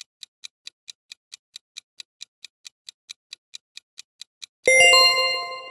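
Countdown timer sound effect: clock-like ticking, about four or five ticks a second, then near the end a loud ringing chime that fades away, marking the end of the countdown.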